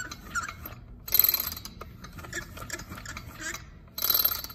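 Echo string trimmer's two-stroke engine pulled through twice on the recoil starter, squeaking and ratcheting as it turns over, with faint clicks in between. The engine has no compression, and a knocking rod is suspected.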